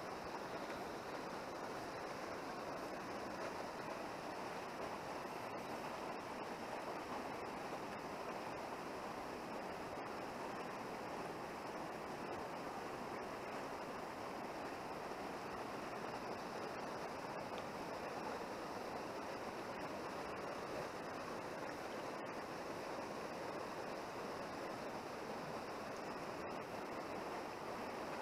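Fast-flowing mountain river rushing over a stony bed, a steady, even rush of water.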